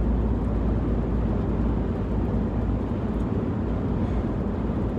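Road and engine noise of a car being driven, heard inside the cabin: a steady low rumble.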